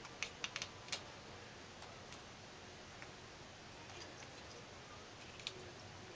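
A kitten making sharp clicking sounds while chasing a laser dot. A quick run of about five clicks comes in the first second, then single clicks here and there.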